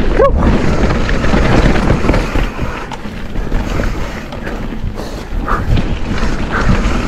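A mountain bike descending a wet, muddy dirt trail at speed: a steady rush of wind over the camera microphone mixed with the tyres rolling through the mud.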